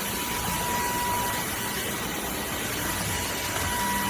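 Dreame H12 wet-dry vacuum running steadily: an even hiss of airflow with a thin high motor whine.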